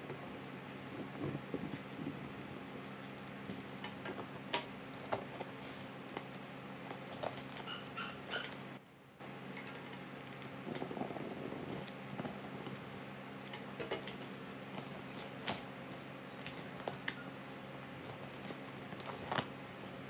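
Scattered light clicks and taps of plastic drinking-straw panels being handled and pressed together, over a steady low hum.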